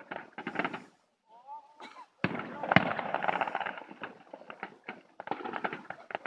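Fireworks going off: rapid crackling, then, about two seconds in, a sudden loud burst followed by a dense stretch of crackle, with more crackling near the end.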